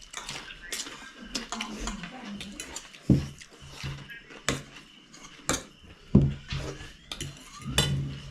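Dishes and eating utensils clinking and knocking while eating: sharp clicks every second or so, several of them with a duller thud.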